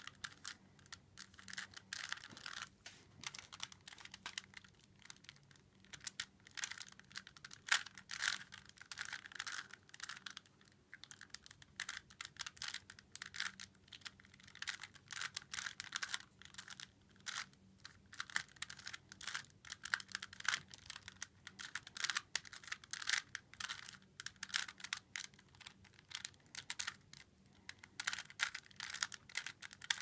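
3x3 Rubik's cube turned rapidly by hand in a solve: a fast, irregular run of plastic layer-turn clicks and clacks, with a few short pauses.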